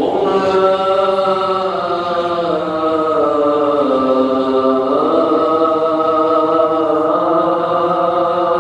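A solo voice chanting an unaccompanied devotional chant in long, held notes that glide slowly down and back up. It is the chant heard while the preacher sits between the two Friday sermons.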